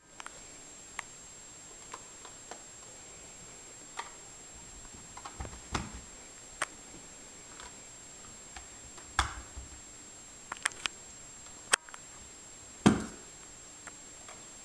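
Scattered soft taps and thumps of movement on carpeted stairs, coming at irregular intervals, with one sharp click about 12 s in and the loudest thump about a second later.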